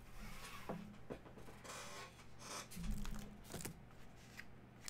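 Faint handling sounds of sealed trading-card boxes being moved and set straight on a tabletop: a few light scrapes, taps and rustles, over a faint steady low hum.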